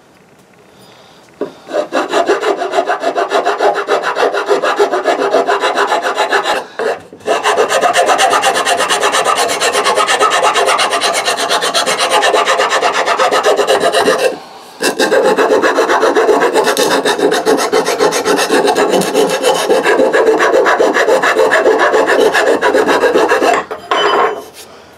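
Rasp filing down the end of a wooden axe handle with fast, rough back-and-forth strokes, taking wood off so the handle fits the axe head's eye. It starts about a second and a half in and runs in three long bouts, with short breaks about 7 and 15 seconds in, stopping near the end.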